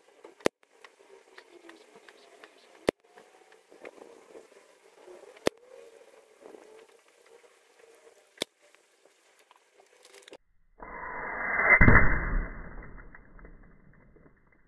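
Air rifle fired four times, single sharp cracks about two and a half to three seconds apart. Near the end, a much louder noise swells and fades over about two seconds.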